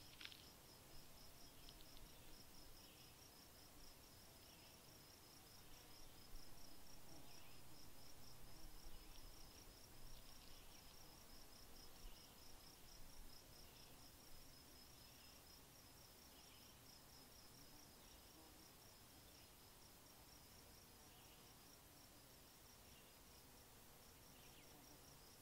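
Faint insect chirping in a steady, fast, evenly pulsed rhythm, with softer scattered chirps about once a second beneath it.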